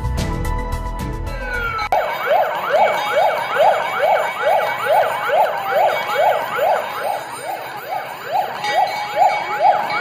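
Background music for about the first two seconds, then a fire engine's electronic siren: a fast rising whoop that repeats about twice a second.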